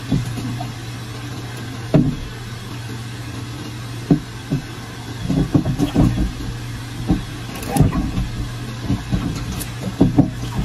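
Water sloshing and splashing with irregular dull thumps as a snapping turtle tears at prey at the surface of its tank, more often from about halfway through, over a steady low hum.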